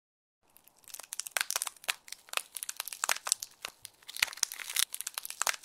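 Intro sound effect of dense, irregular crackling and snapping clicks, starting about half a second in and getting louder by about a second.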